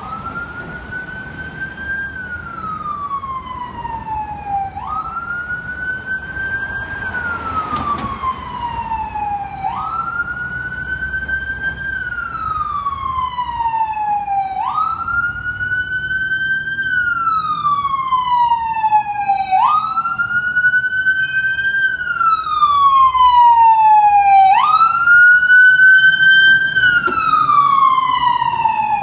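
Ambulance siren on a slow wail, each cycle rising quickly and then falling slowly, about once every five seconds. It grows steadily louder as the ambulance approaches and is loudest near the end as it passes.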